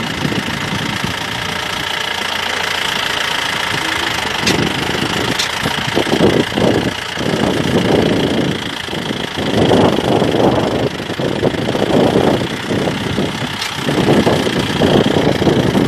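Vehicle engine running, its sound swelling and easing irregularly.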